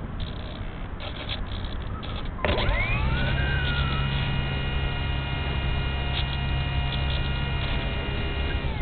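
Parkzone Radian Pro motor glider's brushless electric motor and propeller spinning up about two and a half seconds in with a rising whine, running at a steady pitch for about six seconds, then winding down near the end. Before that there is only wind rush over the gliding airframe, heard from the wing camera.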